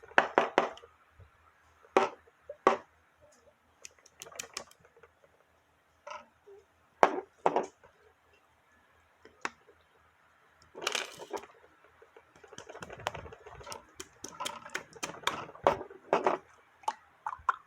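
Slime being squeezed and stretched by hand, giving off irregular crackling clicks and pops with short pauses between them.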